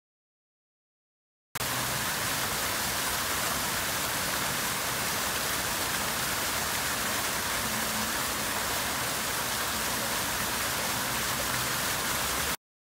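Silence for about a second and a half, then a steady rush of splashing water from a fountain's rows of jets falling back into a shallow pool. It cuts off suddenly near the end.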